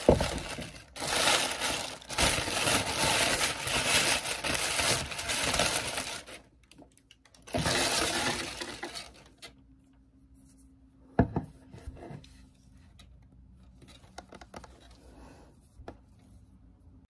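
Packaging crinkling and rustling as a parcel is unwrapped by hand, in a long stretch through the first six seconds and again briefly around eight seconds in. After that, quieter handling with a sharp knock about eleven seconds in.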